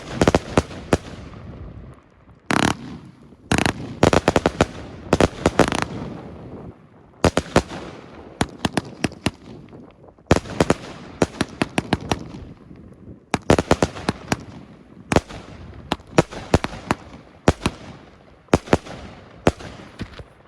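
Firework compound cake (DPA Fireworks Hellfire 3) firing: volleys of rapid sharp bangs in clusters about every one to two seconds, with short quieter gaps between, stopping near the end.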